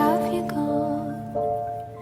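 Soft, gentle background music: sustained instrumental chords in an instrumental gap between sung lines, with a chord change about one and a half seconds in.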